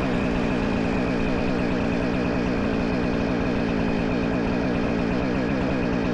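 Jonsered two-stroke chainsaw running steadily at high revs, cutting a cherry round.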